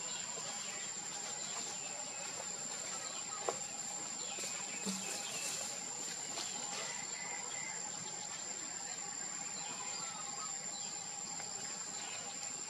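Outdoor ambience: a steady high-pitched insect drone, with a few faint chirps and a single sharp click about three and a half seconds in.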